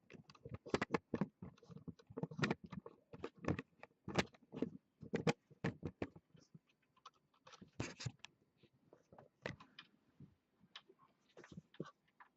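Hands working cables and connectors inside a desktop PC case: irregular clicks, taps and scrapes of plastic and metal.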